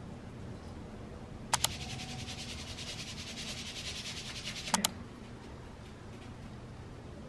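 Seasoning shaker in use: a quick double click as its cap opens, about three seconds of salt granules rattling out as it is shaken over the meat, then another double click as the cap shuts.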